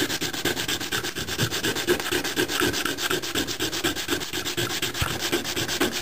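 Magnesium pencil sharpener being rubbed on sandpaper, a steady rasping scrape in quick, even back-and-forth strokes that grinds the metal into fine powder.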